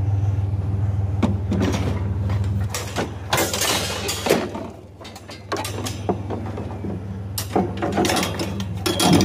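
White wire shelving and scrap metal rattling and clanking as they are shoved into a loaded pickup bed, in repeated short bursts. Under it runs the steady low hum of an idling engine, which fades for a couple of seconds midway.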